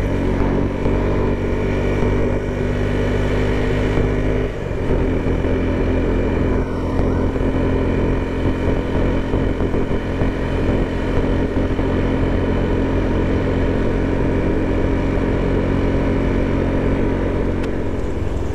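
Motorcycle engine running steadily under way. Its note shifts abruptly about four and a half seconds in, then holds steady again.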